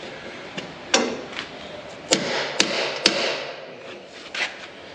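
Hammer blows on metal: a blow about a second in, then three sharp, ringing strikes in quick succession around two to three seconds in, and a lighter knock near the end.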